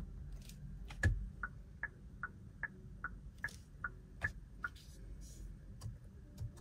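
2024 Hyundai Sonata's turn-signal indicator ticking, a two-tone tick-tock about two and a half times a second, set off by a loud click of the stalk about a second in and stopping after about four seconds. A few lighter clicks of the stalk follow near the end.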